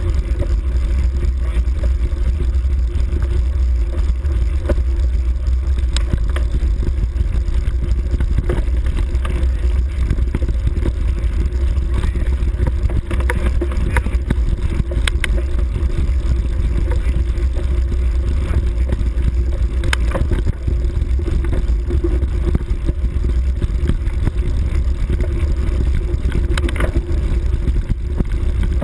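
Steady rumbling wind buffet and ride noise from a bike moving over a grassy forest track, with scattered short knocks and rattles from bumps.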